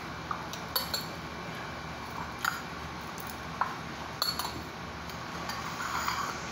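Several light, irregularly spaced clinks of a spoon against a dish or glass, as the freshly made oregano syrup is handled.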